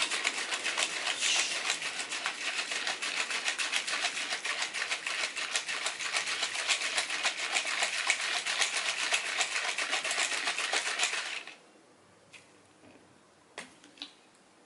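Plastic shaker bottle of whey protein powder and water shaken hard and fast, a rapid run of sloshing strokes that stops abruptly after about eleven seconds. A few faint clicks follow near the end.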